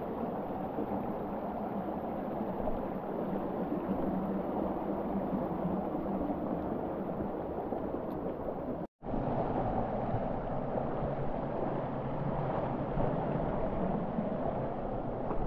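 Steady rushing of a canyon creek's flowing water, which cuts out for a moment about nine seconds in and then carries on.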